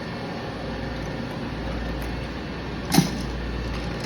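Steady rumble of a running vehicle, with one sharp click about three seconds in.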